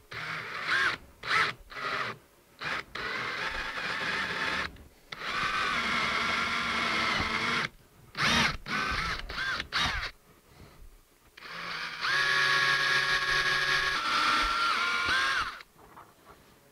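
DeWalt cordless drill running in repeated trigger bursts as a twist bit bores holes through a plastic trash-can lid into a wood backer. The motor whine starts and stops many times: a few short blips at first, then runs of a couple of seconds, the longest near the end.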